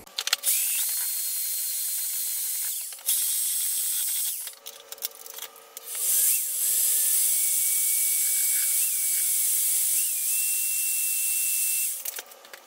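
A power drill with a mixing paddle stirring primer in a can, run in three stretches, the last and longest from about six seconds until near the end, its motor whine shifting in pitch as the speed changes.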